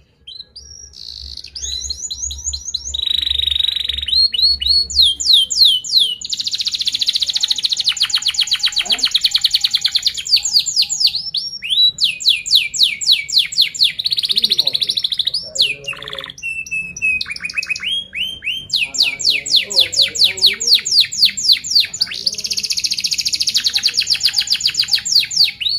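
Domestic canary singing a long song of tight rolls: fast runs of one high note repeated many times, each run at its own speed, joined by a few slower falling notes and short breaks.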